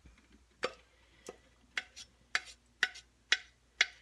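Wooden spoon knocking against the side of a metal pot while stirring thick custard, seven light clacks about two a second, each with a short metallic ring.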